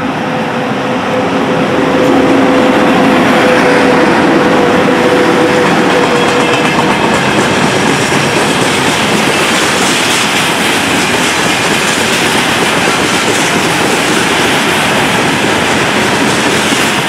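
Freight train passing close by, hauled by a VL80-series electric locomotive: a steady hum from the locomotive fades over the first few seconds, then the loud rolling rumble and clatter of freight wagons' wheels on the rails carries on.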